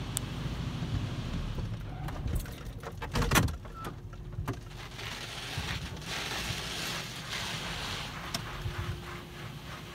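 D&S Super 5000 in-bay automatic car wash running around the car, heard from inside the cabin: water spray hissing on the body and glass, with a cluster of knocks about two to three and a half seconds in, the loudest near the middle.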